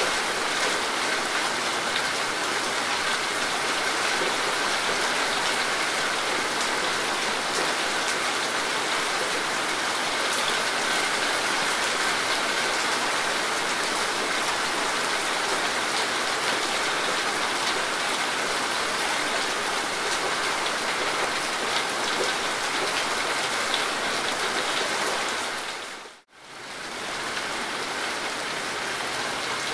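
Steady rain falling, an even, unbroken hiss. About 26 seconds in it drops briefly to silence, then fades back in.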